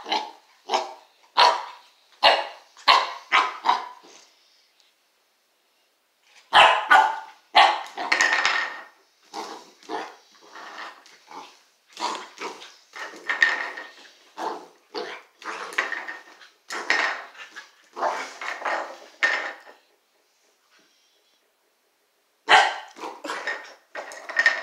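Springer spaniel barking in play, many short sharp barks in quick runs, broken by two pauses of about two seconds.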